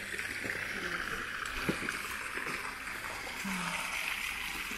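Water splashing steadily from a fountain, with a single short knock about two seconds in.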